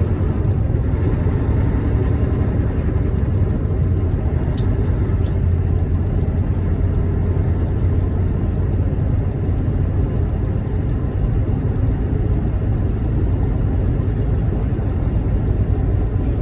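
Steady low rumble of a semi-truck's engine and road noise, heard from inside the cab while driving.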